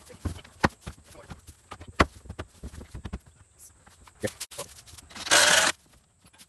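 Scattered wooden knocks and clatter as plywood wall panels are handled and set in place on the outhouse frame. A little after five seconds in comes a short, loud burst from a power drill driving a screw.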